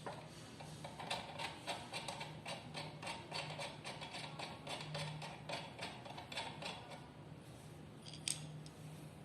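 Rapid, even clicking of a hand tool working a fastener on an electric bicycle, about four or five clicks a second for several seconds, then one sharper click near the end, over a faint steady hum.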